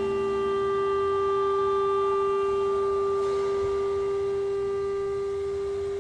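Contemporary chamber ensemble of flute, clarinet, violin, cello and piano holding one long steady note, slowly fading in the second half.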